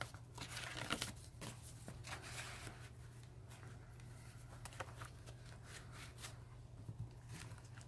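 Faint rustling and light ticks of cardstock pages and flaps as a handmade chipboard mini album is leafed through and its flaps opened.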